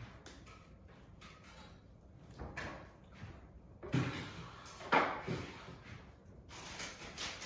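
A few thumps and scuffs from a barefoot person moving on a tile floor while swinging a tennis racket, the loudest about four and five seconds in, with a rustling noise near the end.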